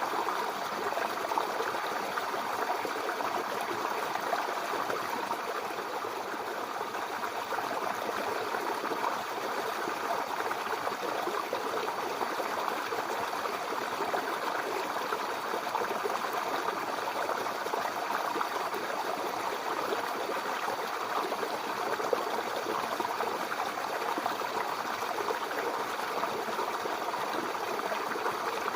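Mountain river flowing over rocks: a steady, even rush of water.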